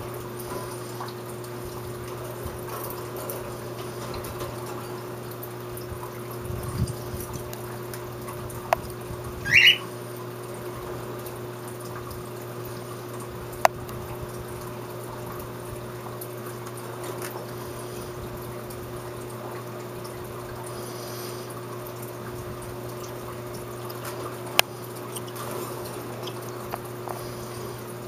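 A cockatiel gives one short, rising chirp about a third of the way in, over a steady low hum and hiss, with a few sharp clicks scattered through.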